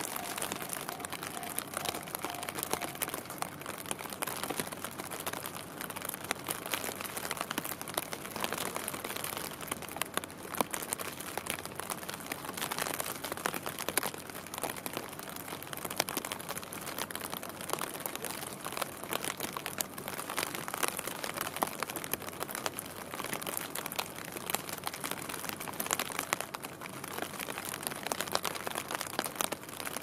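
Steady rain, heard as a dense patter of many small drop hits.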